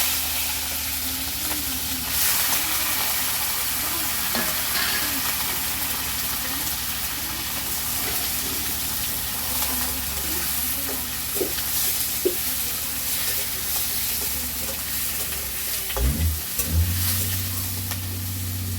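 Raw chicken pieces frying in hot oil in a kadai, a loud steady sizzle that sets in abruptly as the meat hits the oil. A spatula scrapes and clicks against the pan as the meat is stirred, with a few knocks near the end.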